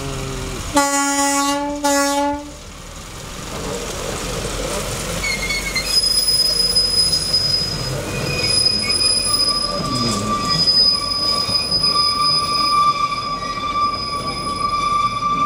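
Two short horn blasts from a small narrow-gauge diesel locomotive about a second in, the second shorter than the first. From about six seconds on, the passing passenger wagons' wheels squeal steadily on the curved track over the low rumble of the train.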